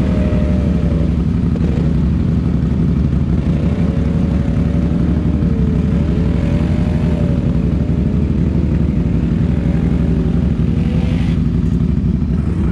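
ATV engine running hard in deep mud, revving up and down several times as the quad churns through.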